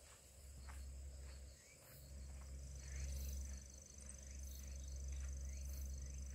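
Insects trilling: a steady high buzz that sets in about two and a half seconds in, a fainter pulsing trill beneath it and high chirps repeating about twice a second. Faint footsteps on gravel tick away in the first seconds, over a low steady rumble.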